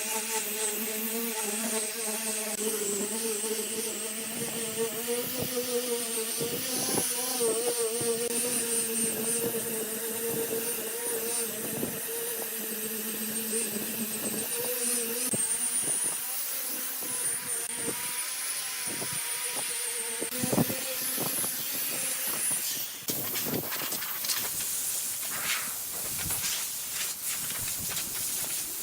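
A woodworking power tool running steadily with a hissing whine, its motor note holding even, then stopping shortly before the end, followed by a few wooden knocks.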